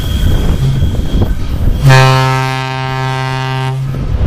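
VL80K electric locomotive sounding its air horn as it approaches with a freight train. A brief short toot comes early, then a loud, steady, low-pitched blast of about two seconds. Under the horn runs the rumble of the approaching train and wind.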